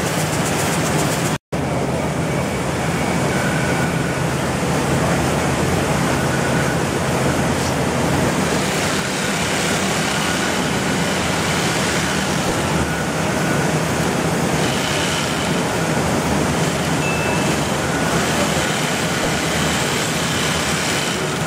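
Steady, dense running noise of rice mill machinery, with a momentary dropout about a second and a half in.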